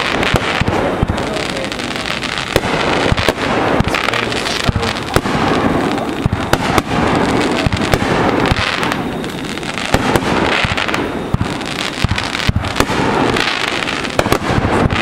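Fireworks going off in quick succession: many sharp bangs scattered over continuous crackling, with no let-up.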